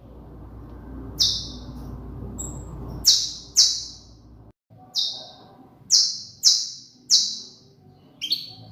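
Domestic canary (canario criollo) singing: a series of loud, sharp, high notes, each trailing off, with a quicker rising phrase near the end. A low background rumble fills the first half.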